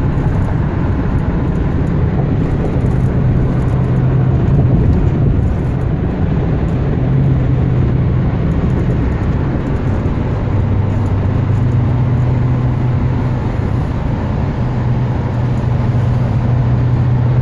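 Steady engine and tyre noise heard inside a car cruising at freeway speed, with a low drone that drifts a little in pitch.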